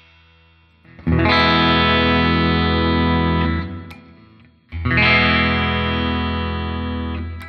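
Epiphone Prophecy SG electric guitar with Fishman Fluence pickups, played through an amp: two single chords, each struck once and left to ring for a couple of seconds before fading. The pickup setting is changed between them, and the second chord, about five seconds in, is on the split-coil voicing. A faint click sounds in the gap between the chords.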